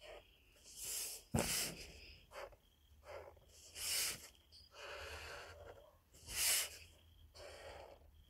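Felt-tip marker strokes scratching across paper in a run of short hissy rustles, roughly one a second, with a sharp knock on the table about a second and a half in.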